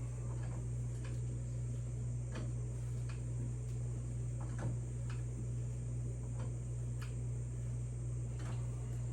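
Motorcycle jack being worked to raise the bike: irregular light clicks, about one every second, over a steady low hum.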